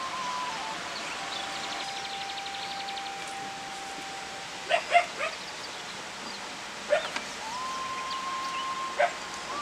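Soft background music of long held, gliding tones. A few short, loud animal calls break in: three close together about halfway through, then single ones later on and near the end.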